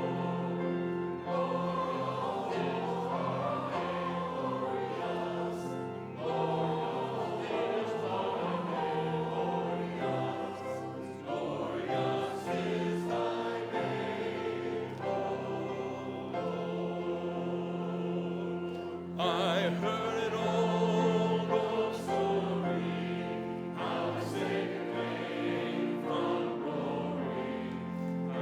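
Church congregation singing a hymn together, with sustained notes that change every second or two.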